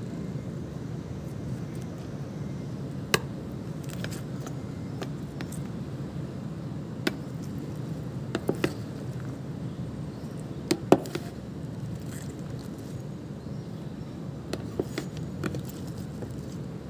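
Scattered short, sharp clicks and taps, a dozen or so, the loudest about eleven seconds in, over a steady low rumble.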